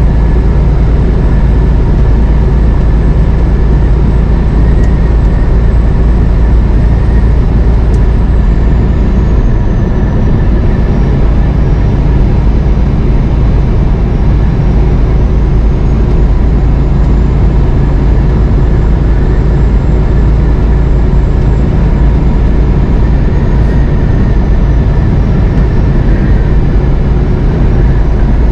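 Semi-truck cab at highway speed: a loud, steady low drone of engine and road rumble that does not change.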